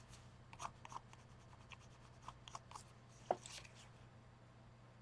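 Faint, irregular light taps and ticks of art materials being handled at a craft table, with one sharper click a little past three seconds in, over a steady low hum.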